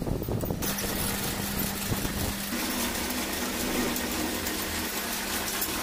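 Brief clatter of hands on a metal lathe's change gears, then, about half a second in, the lathe running with a steady hum as it turns a steel e-rickshaw shaft. A second, higher steady tone joins about two seconds in.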